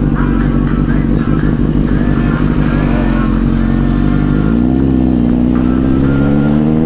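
Motorcycle engine running steadily on a night ride, heard from the bike carrying the camera, its note shifting in pitch about four and a half seconds in.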